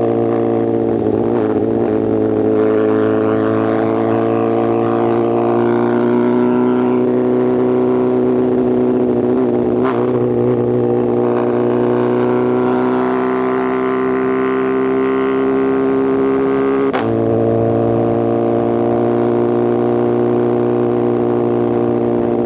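2024 BMW S1000RR's inline-four running through a titanium exhaust at steady throttle, its pitch climbing slowly. About seventeen seconds in, a quick gear change drops the pitch a little, and the engine then holds steady again.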